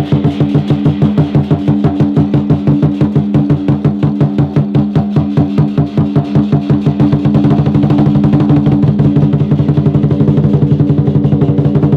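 Music with a fast, steady drum beat over sustained low notes.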